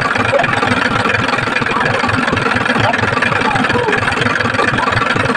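Engine idling steadily with a fast, even low-pitched chugging, most likely the vehicle hauling the palm fruit trailer.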